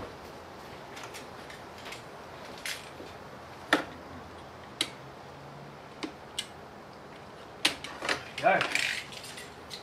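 Scattered clicks and light knocks of a hand tool working at a car's plastic dashboard and its fixings, a second or more apart, coming closer together near the end.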